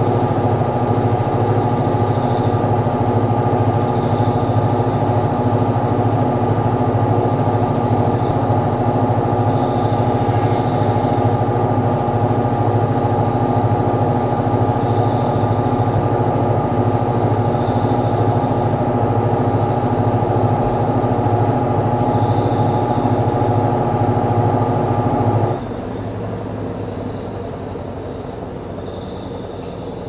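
AQUA AQW-GS70H 7.0 kg top-loading washing machine running its spin cycle: a loud steady motor hum with a whine. About 25 seconds in, the drive cuts off abruptly, leaving a quieter sound that slowly fades as the tub runs down.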